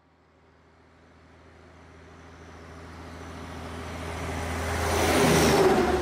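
Motor vehicle engine hum and road noise fading in from near silence and growing steadily louder, loudest about five and a half seconds in, then easing off a little.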